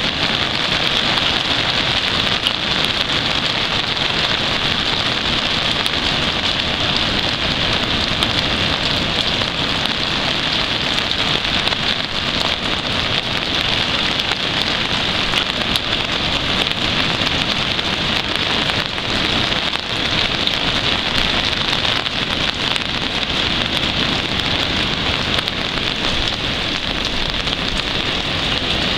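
Rain falling steadily, an even, unbroken hiss with no let-up.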